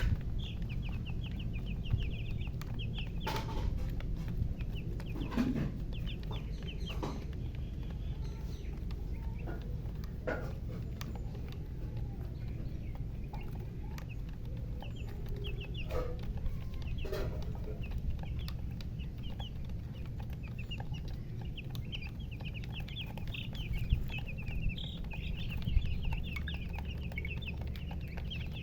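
Chicks peeping in long runs of rapid, short, high chirps, with a few lower hen clucks now and then, over a steady low rumble.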